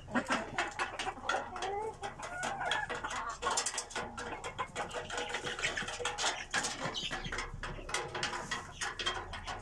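A flock of Fayoumi and local laying hens clucking and muttering, with many quick taps as they peck at feed.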